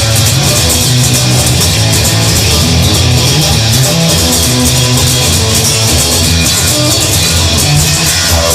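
Rock music with guitars and bass, instrumental with no singing.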